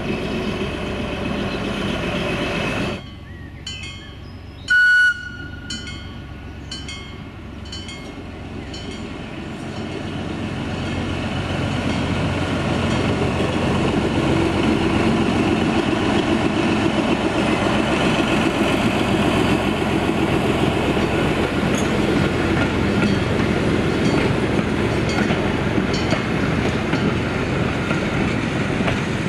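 Frichs 1952 six-cylinder diesel locomotive running, with a short horn blast about five seconds in. The train then draws near and passes, its engine and wheels on the rails growing louder and staying loud as the carriages roll by.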